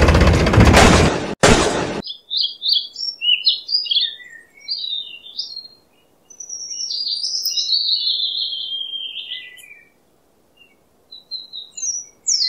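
Loud music stops abruptly about two seconds in, and then small birds chirp and twitter in quick, high, sweeping phrases, pausing briefly near the end.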